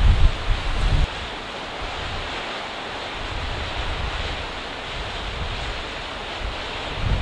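Steady rushing of a mountain river or stream. In the first second, wind buffets the microphone with a low rumble that stops suddenly.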